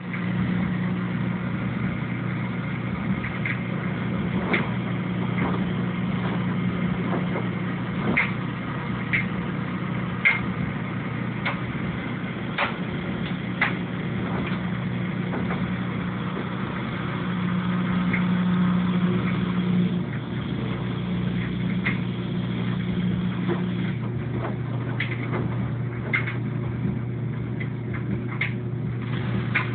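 LG washing machine running: a steady low motor hum with scattered clicks and knocks. Part of the hum stops a little past the three-quarter mark.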